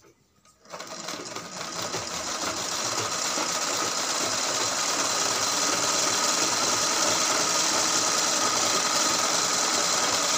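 Pico (picot edging) sewing machine stitching a rounded picot edge on fabric. It starts about half a second in, builds up over the next two seconds, then runs at a steady speed.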